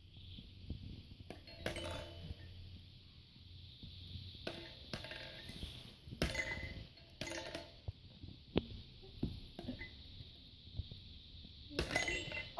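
Scattered clinks and knocks of small hard objects being handled and tapped, irregular and a few seconds apart.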